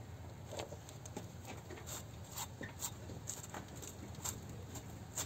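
Faint scattered clicks and small metallic taps over a low rumble, from a foot pressing and bouncing on a steel pipe extension on a wheel-nut wrench that is straining against a stuck wheel nut.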